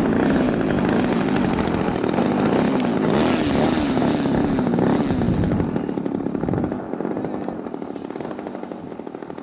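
A 30cc two-stroke petrol engine on a Seagull Edge 540 RC model plane running at high power, its pitch wavering up and down. About six to seven seconds in it drops away and carries on more quietly.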